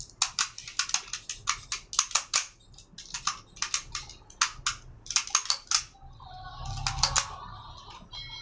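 Sharp metal clicks and clacks of a 1911 pistol's slide, frame and small parts being handled and fitted together by hand: a quick, irregular run of clicks, then a few more near the end.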